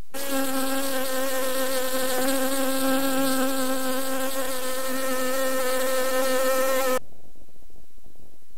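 Recorded sound effect of a buzzing insect: a steady, even-pitched buzz that starts abruptly and cuts off suddenly about seven seconds in, as a triggered sound is stopped.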